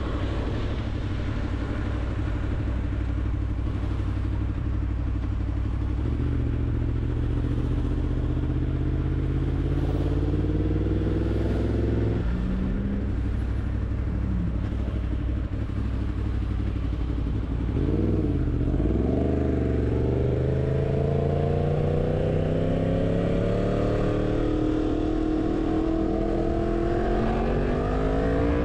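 Yamaha MT-10's crossplane inline-four engine under way, heard from the rider's seat: a steady note at first, then the revs climb, drop sharply about twelve seconds in at an upshift, rise and fall briefly, and climb steadily again near the end.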